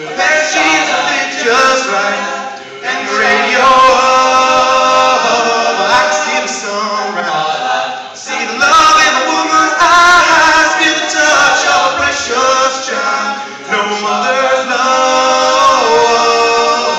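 A cappella vocal group singing in multi-part harmony, several voices holding chords together without instruments.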